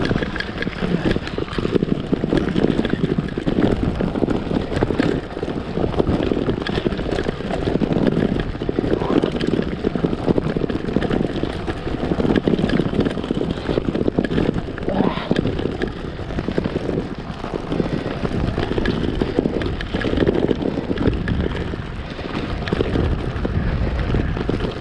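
Road bike clattering over cobblestones: a dense, unbroken rattle of jolts from the bike and its handlebar fittings.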